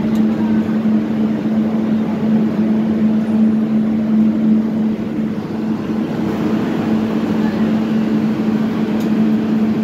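Steady hum of a CAF 6000-series metro train standing at the platform with its doors open, a constant low tone over a dense background of noise, with faint crowd murmur.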